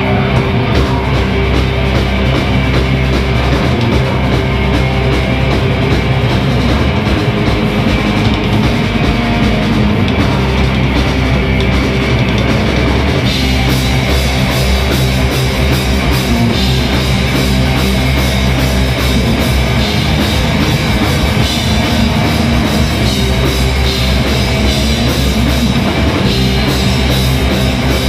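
Live heavy rock band playing loud: distorted electric guitars over a pounding drum kit. The sound gets brighter and fuller in the treble about halfway through.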